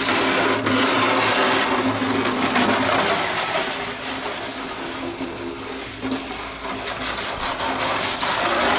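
Small petrol engine of a homemade kart running steadily as the kart drives on ice. It fades somewhat in the middle and grows louder again near the end.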